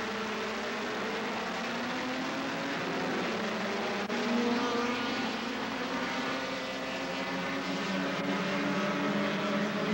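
Several small saloon race cars' engines revving together, their notes rising and falling over one another; about four seconds in the sound cuts to the pack accelerating away and gets louder.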